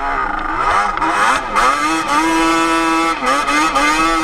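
Yamaha Banshee 350's twin-cylinder two-stroke engine, breathing through Toomey T5 expansion-chamber pipes and silencers, running loud at high revs under hard acceleration. Its pitch dips briefly and climbs back twice, about one and a half and about three seconds in, then holds high and steady.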